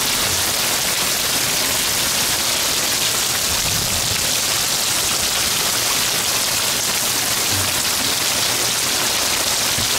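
Heavy rain coming down hard in a steady downpour, a dense even hiss with no letting up.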